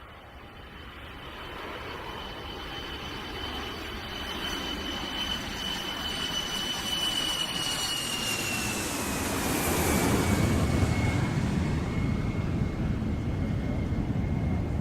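Boeing 747's four jet engines on approach, passing close by: a high engine whine drops in pitch about two-thirds of the way through as the aircraft goes past, while the sound grows louder and a low rumble builds.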